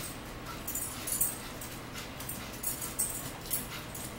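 Chewing and mouth smacks of someone eating chicken nuggets and tater tots close to the microphone: a run of short, crackly smacks and clicks, bunched about a second in and again around three seconds in.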